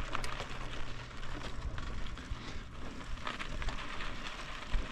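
Bicycle tyres rolling over gravel: a steady crackle with many small clicks of stones under the wheels.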